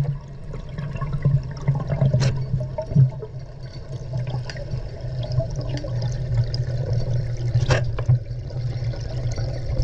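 Underwater sound as picked up by a submerged camera: muffled water rushing over a steady low hum, with scattered faint clicks and crackles and a sharper click about two seconds in and again near the end.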